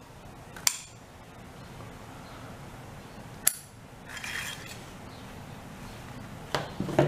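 Sharp metal clicks, four spread over the few seconds, and a brief scrape from a Model 1889 Danish Krag-Jørgensen bayonet being worked in and out of its leather scabbard, steel blade and guard knocking against the steel throat and spring catch.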